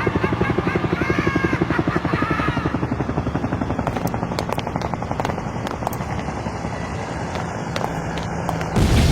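Rhythmic chopping drone of an aircraft's rotors or propellers passing overhead, with police sirens wailing over it and fading out in the first couple of seconds. The chopping thins out, and a sudden loud rush of noise breaks in just before the end.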